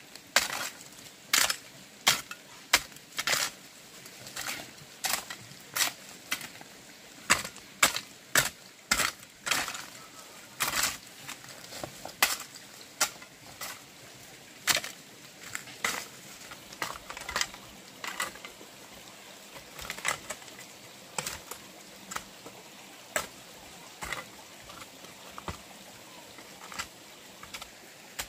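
A long series of sharp knocks or strikes at an uneven pace, about one or two a second, some much louder than others.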